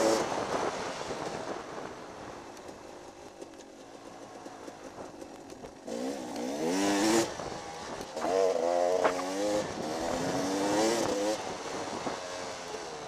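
Dirt bike engine under the rider's throttle: it eases off for a few seconds, then about six seconds in it revs up in three rising surges, each dropping back before the next.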